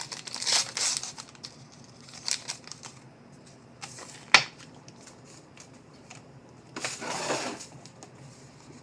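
A foil trading-card pack wrapper being torn open and crinkled in the hands, in two bursts of rustling, with a single sharp click about four seconds in.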